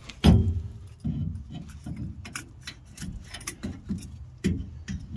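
Metal clunks and clicks as a Nissan C200 differential carrier, with its ring gear and carrier bearings, is worked by hand into the axle housing, a tight fit against the side spacers and the pinion gear. One heavy knock comes about a quarter second in, then a run of irregular lighter clinks.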